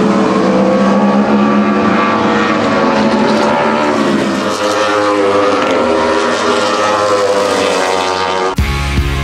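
Aprilia-engined Wolf Thunder prototype race cars running on track, their engines revving up and down through the gears as they go through the corners. Music cuts in abruptly near the end.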